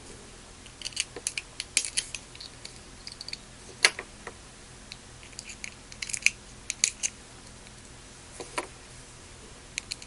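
Light metallic clicks and scrapes of a flathead screwdriver worked into the keyways of small suitcase padlocks as they are forced open without a key, coming in scattered clusters of sharp ticks.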